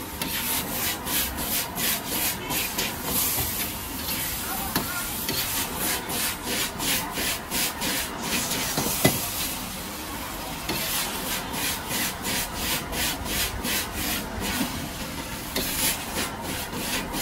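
Steel wok ladle scraping and stirring fried noodles around a wok in rhythmic strokes, about three a second, in several runs with short pauses between them, over a steady frying hiss. One sharp knock about nine seconds in.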